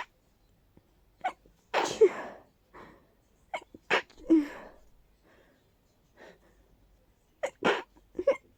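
A person's stuffy, stifled sneezes in quick succession, several sneezes with sharp catching breaths between them, the loudest about two seconds in. It is an allergy sneezing fit with a blocked-up nose.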